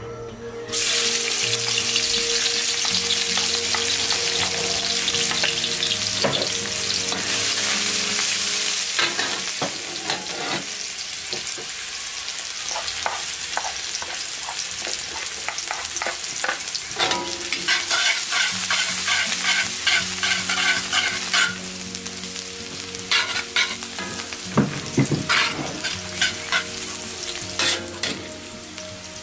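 Chopped red onion hitting hot oil in a wok, bursting into a loud sizzle about a second in. The sizzling goes on as onion and garlic are sautéed, with a spatula scraping and clicking against the wok in quick strokes through the second half.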